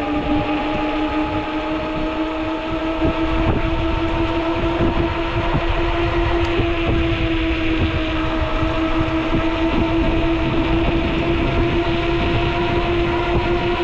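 Ecotric folding fat-tire e-bike riding along: a steady whine from its hub motor and fat tyres, rising slowly in pitch as it gathers speed, over a low rushing noise of wind and road.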